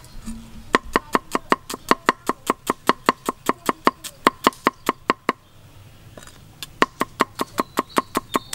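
Cleaver slicing shallots on a wooden chopping board: quick, even knocks of the blade striking the wood, about five a second. The knocks pause for about a second and a half in the middle, then start again.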